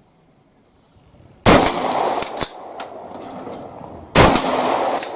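Two shots from a 12-gauge shotgun, about two and a half seconds apart, each a sharp loud blast with a long echo trailing off.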